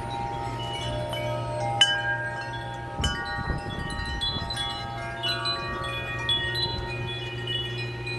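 Several large Carson metal tube wind chimes ringing in strong gusty wind. The tubes are struck again and again, and their long overlapping tones layer over one another, with sharp strikes about two and three seconds in.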